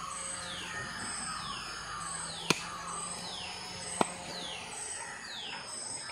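Two sharp chops of a machete through a duck's leg joints into a wooden chopping block, about a second and a half apart, over repeated high falling chirps.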